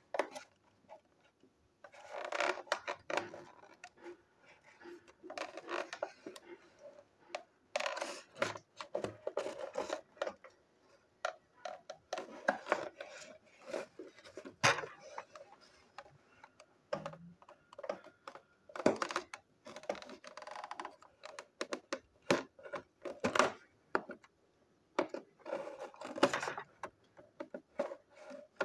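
Scissors scraping and snipping along the edges of a cardboard toy box with a clear plastic window, cutting its seals, with irregular clicks, scrapes and rustling as the packaging is handled.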